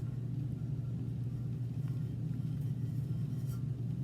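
Steady low hum of a running machine, with a few faint light ticks of small handling sounds.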